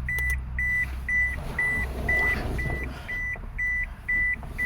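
The 2005 Toyota Passo's key-in-ignition warning buzzer beeps steadily, about two short high beeps a second, because the key has been left in the ignition. A low hum underneath dies away about three seconds in.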